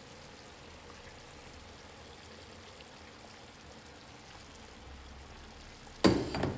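Beef strips frying in a pan with a faint, steady sizzle. About six seconds in, a sudden loud clatter.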